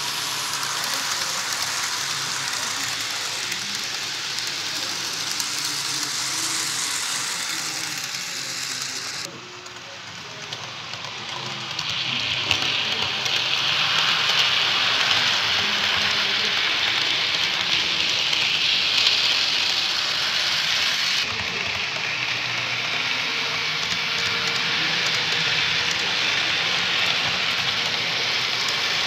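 Model trains running on a layout's track: a steady rushing noise of small wheels on rails and electric motors. It drops abruptly about nine seconds in and is loudest from about twelve to twenty-one seconds.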